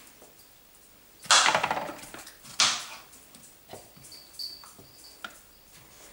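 Kitchen knife cutting strawberries on a plastic cutting board: a few light knocks and clicks, with two louder hissing sounds about one and a half and two and a half seconds in.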